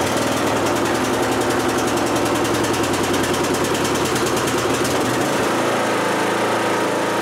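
Kohler Courage 20 HP engine of a Troy-Bilt Horse riding mower running steadily just after a cold start, with the choke still on. Its note shifts slightly about five and a half seconds in.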